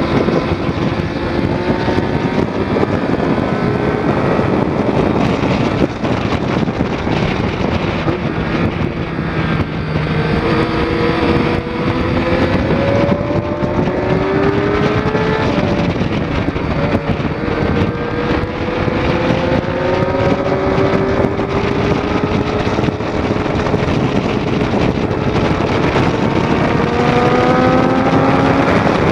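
2006 Triumph Daytona 675's inline three-cylinder engine under way, its revs climbing steadily in each gear and dropping back at the gear changes, several times over. Heavy wind noise on the bike-mounted camera runs underneath.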